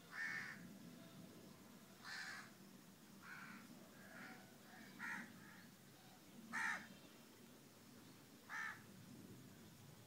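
A bird calling repeatedly off camera: about seven short calls, spaced a second or two apart.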